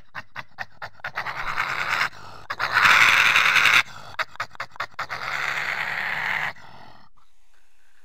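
European badger grunting in quick short bursts, about four or five a second, broken by two longer harsh screams, the louder one about three seconds in; it quietens near the end.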